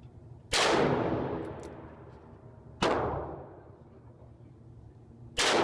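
Ruger Redhawk .44 Magnum revolver fired three times, about two and a half seconds apart, each loud shot followed by a long echoing decay.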